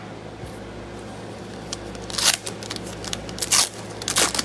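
Foil trading-card pack wrapper crinkling in the hands: three short crackly rustles, the loudest about two seconds in, with a few small clicks between.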